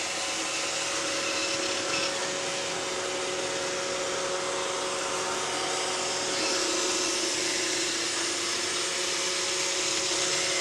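iRobot Roomba 620 robot vacuum running, a steady whirring hum of its vacuum motor and brushes.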